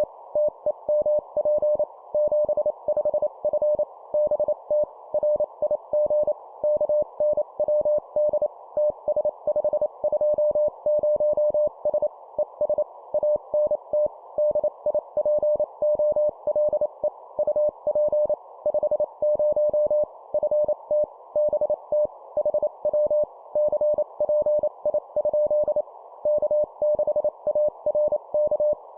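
Morse code (CW) sent at 25 words per minute: a single steady tone near 600 Hz keyed in rapid dots and dashes, over a steady band of hiss like a radio receiver's background noise.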